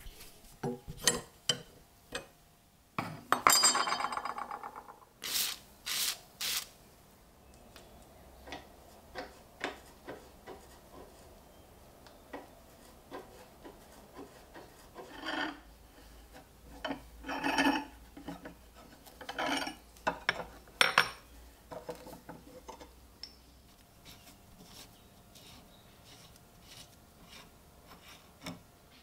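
Metal handling sounds at a bench vise: scattered knocks, clicks and rubbing as a metal-shafted handle with stacked washers is clamped and worked on. About three to five seconds in there is a rapid rasping scrape, the loudest sound, and a few sharper knocks follow.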